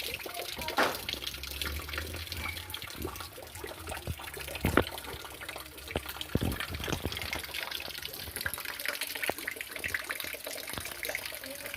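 Heavy rain pouring down: a steady hiss of splashing with a few louder knocks of drops striking something hard.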